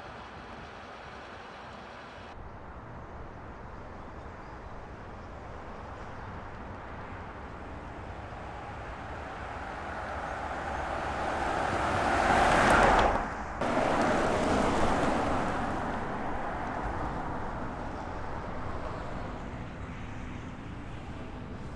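A Volkswagen Touareg Hybrid SUV driving past: its tyre and road noise builds over several seconds to a loud peak about halfway through, cuts out sharply for a moment, then fades away as the car moves off.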